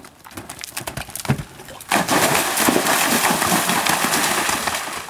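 Horse's hooves drumming on turf at a canter, then about two seconds in, a loud rush of splashing as the horse gallops into a water jump and churns through the water.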